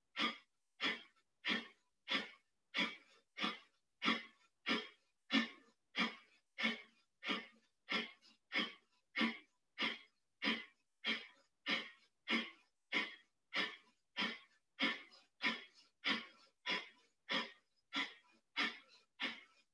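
A woman's forceful rhythmic breathing in a yoga energising breath exercise, about three sharp breaths every two seconds in an even, unbroken rhythm.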